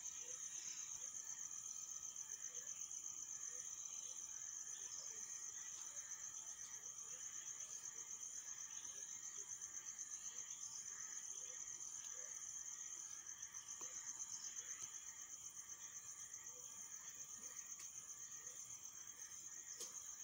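Insects trilling steadily, a high-pitched, fast-pulsing chorus that does not break.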